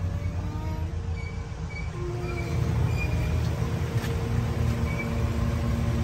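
A steady low mechanical rumble, with a faint hum joining about four seconds in.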